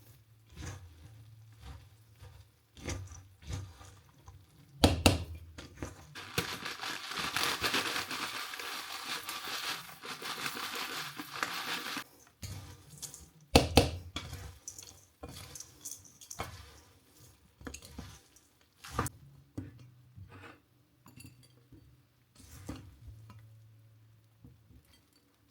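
Kitchen handling sounds: scattered knocks and clinks of tableware, two of them loud, with a steady hiss lasting about six seconds in the middle and a low hum underneath.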